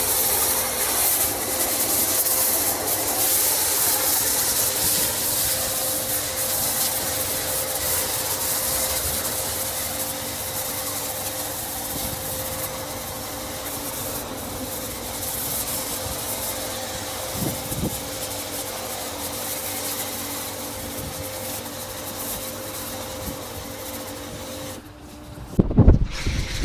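Active foam spraying from a foam lance onto a truck: a steady hiss with a steady hum under it. Near the end it cuts to louder, uneven rumbling and knocks.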